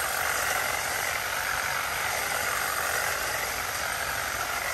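Hedge trimmer running steadily at full speed, its blades cutting through ficus foliage.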